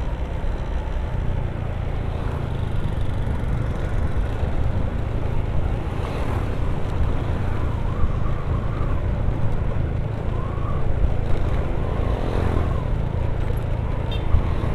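Honda Vario 150 scooter ridden at a steady pace: its single-cylinder engine runs evenly under a steady rumble of wind and road noise.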